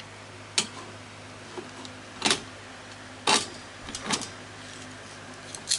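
Handling clicks and knocks as a metal 16mm film reel is worked onto a projector's spring-pinned reel arm: about six sharp clicks spread over a few seconds, over a steady low hum.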